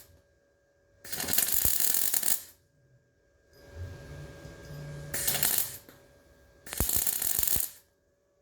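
Electric arc welding on the steel front cross member of an FJ Holden: three bursts of crackling and sizzling, each about a second long, with short pauses between as the weld is laid down in stitches.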